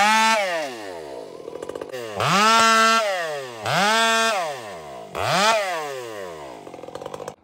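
Two-stroke chainsaw revved up to full throttle and let fall back to idle four times, the second rev held for about a second.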